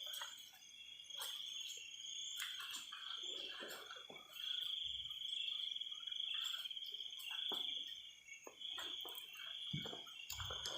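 Crickets and other night insects trilling in a steady high-pitched chorus, with scattered soft rustles and knocks underneath.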